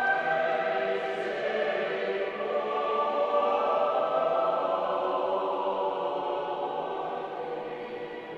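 Choral music: a choir singing long held chords that swell at the start and slowly fade toward the end.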